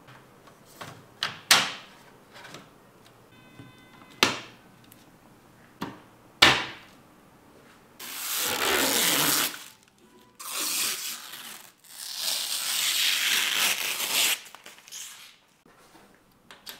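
Hands working with PC parts. There are several sharp knocks and clicks, five of them loud in the first seven seconds, then three stretches of hissing, rustling noise lasting one to two seconds each in the second half.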